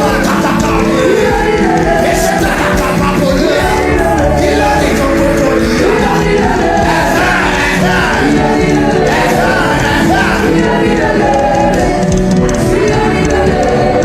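Live worship music: steady held keyboard chords under a crowd of voices singing together.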